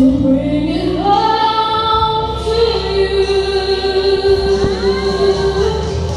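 A solo female voice singing through a handheld microphone over musical accompaniment. She slides up about a second in, then holds one long note from about two and a half seconds in until near the end.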